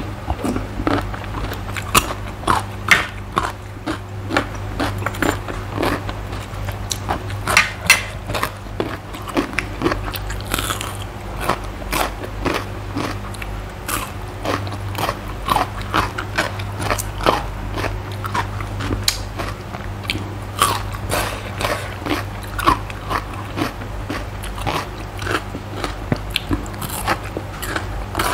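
Close-miked crunchy biting and chewing of raw vegetables, slices of red bell pepper and cucumber from a spicy cucumber salad, in many irregular crisp crunches, over a steady low hum.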